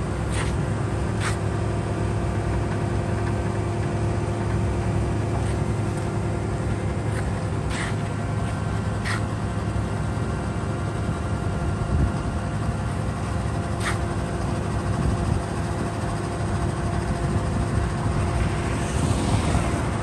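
Dynapac SD2500CS asphalt paver's diesel engine running steadily, a constant hum with a steady whine over it. A few sharp clicks come through, and a hiss swells near the end.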